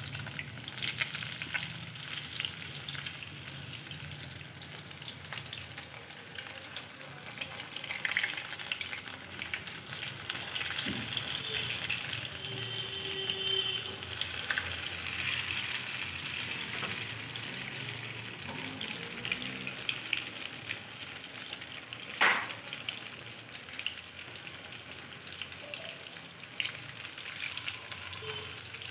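Chicken lollipops deep-frying in hot oil in a kadai: a steady sizzle thick with fine crackling, while a steel spoon turns the pieces. One sharp clink stands out about two-thirds of the way through.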